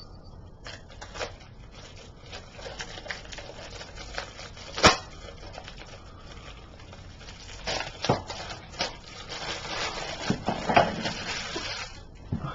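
Plastic shrink wrap being peeled and torn off a DVD slipcover: crinkling and crackling with scattered clicks, one sharp snap about five seconds in, and a busier stretch of crinkling near the end.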